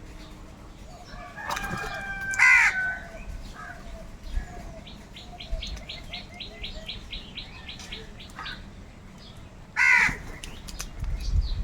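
Crows cawing: a loud harsh caw about two seconds in and another near the end. In between, a fast, even run of short high chirps goes on for about three seconds.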